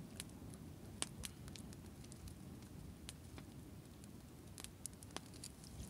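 Wood fire crackling faintly: scattered sharp pops at irregular intervals over a low steady rumble.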